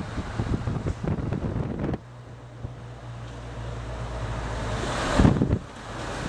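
Wind buffeting the microphone in an open-top Suzuki Jimny on the move, with the engine's steady low hum underneath. The wind noise grows louder to a strong gust about five seconds in.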